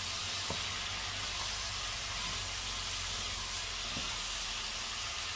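Pork and vegetables sizzling in a cast-iron pot as they are stirred with a wooden spatula: a steady hiss, with a light knock of the spatula about half a second in and another near four seconds.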